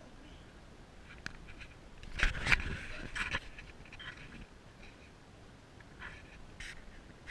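Small terrier-mix dog playing close to the camera: panting and scuffling on a hardwood floor, with a cluster of loud scuffs and knocks about two seconds in.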